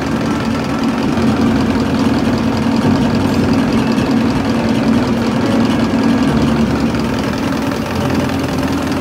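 Diesel injection pump test bench running steadily, driving a rebuilt Denso four-cylinder rotary injection pump during its calibration test, with an even mechanical hum.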